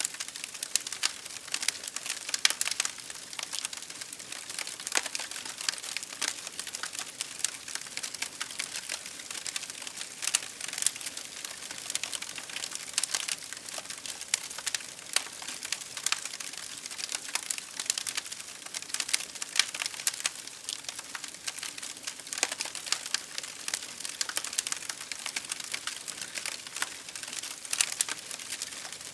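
Wood fire crackling: a continuous stream of irregular sharp pops and snaps over a soft hiss, with a few louder pops scattered through.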